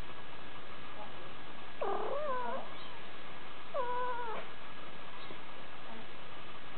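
Somali kitten mewing twice: two short calls, each under a second, about two seconds apart, over a steady background hiss.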